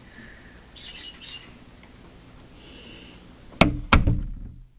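Motion-sensor electronic bird chirper giving a few short high chirps about a second in. Near the end come two sharp, loud knocks about a third of a second apart.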